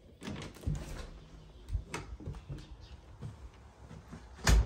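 Footsteps and handling knocks while walking with a hand-held camera, irregular low thumps, with one louder thump near the end.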